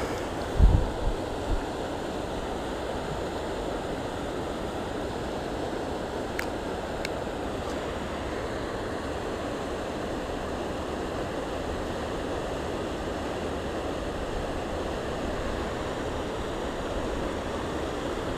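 Steady rushing of a fast, flood-swollen river current. A few low thumps sound about a second in.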